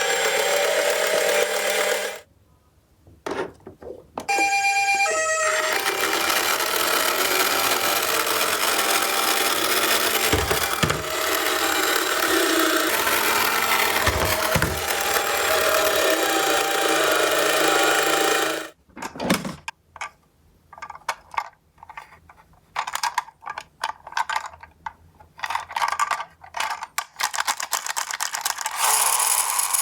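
Electronic sirens of toy ambulance minicars sounding together as a dense jangle of steady electronic tones, broken by a short pause near the start. About two-thirds of the way through it stops and gives way to a quick run of small clicks and rattles from the toy cars.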